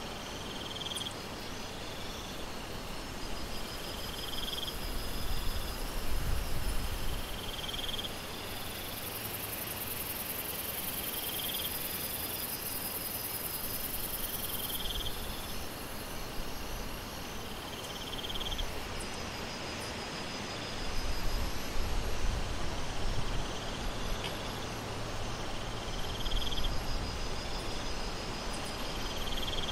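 Steady rain hiss with insects chirping in a repeating pattern about every two seconds. A high-pitched insect buzz runs for several seconds near the middle, and low rumbles come in about a fifth of the way through and again about two-thirds through.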